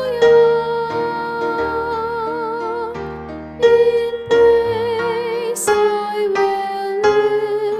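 A soprano singing a slow hymn in long held notes with vibrato, over piano accompaniment.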